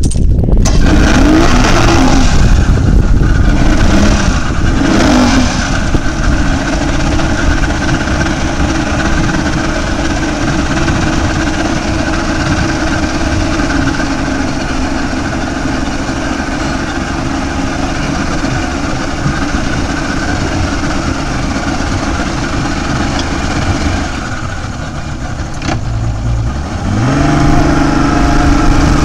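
Mercury 150 hp outboard motor running, revved briefly twice in the first few seconds. Near the end it drops back, then opens up with a rising pitch as the boat accelerates.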